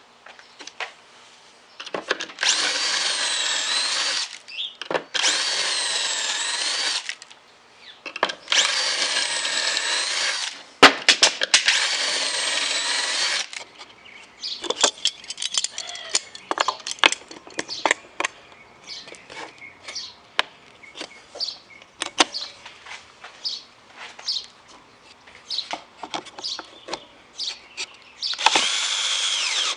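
Power drill running in four bursts of about two seconds each, its whine wavering in pitch with the load. It is followed by a long stretch of short, irregular knocks and clicks, and one more drill burst near the end.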